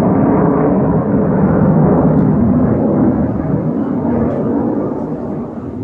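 Military jet passing overhead: loud, rushing jet noise that fades away from about three seconds in.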